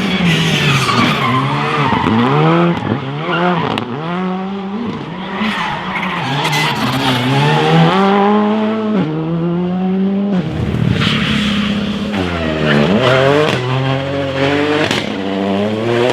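Rally car engine revving hard, its pitch climbing and dropping back sharply with each quick gear change, several times over, with a deep drop about two thirds of the way through before it climbs again.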